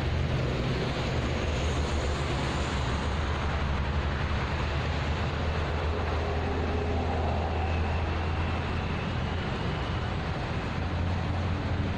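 Steady rumble and hiss of toll-road traffic.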